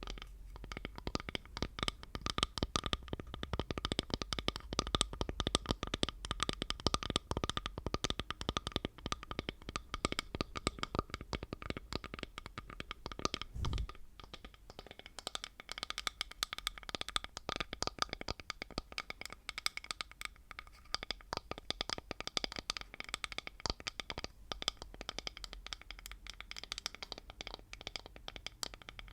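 ASMR tapping on an object: a continuous flurry of quick, light taps with a faint ringing tone to them, and one duller thump about 14 seconds in.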